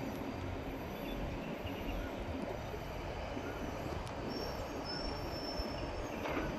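Cable car gondola in motion along its cable: a steady low rumble and hiss, with a faint high whine a little past halfway.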